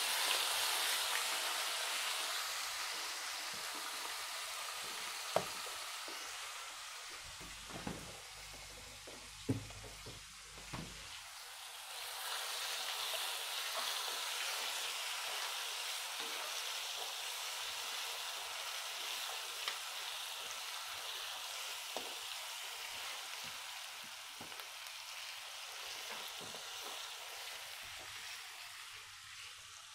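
Ginger-garlic paste sizzling in hot oil with whole spices in a steel kadhai, stirred with a spatula that clinks against the pan a few times. The sizzle dies down for a few seconds, then picks up again and slowly eases off.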